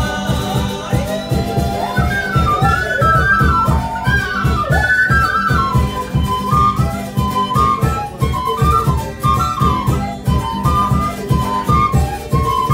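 Andean folk band playing live: two end-blown flutes carry a wavering melody over strummed acoustic guitar and charango and a steady bombo drum beat.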